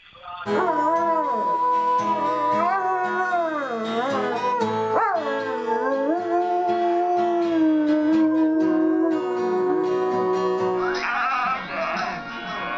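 A dog howling in long, drawn-out notes that slide up and down in pitch, breaking off near the end.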